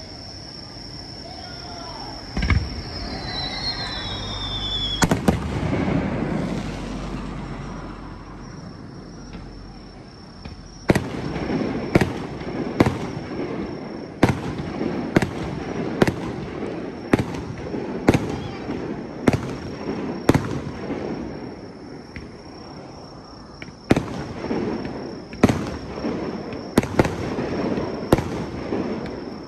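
Aerial fireworks shells bursting. There is a bang about two seconds in, a falling whistle, and a bigger bang with a low rumble around five seconds. From about ten seconds on comes a steady run of sharp bursts, roughly one a second.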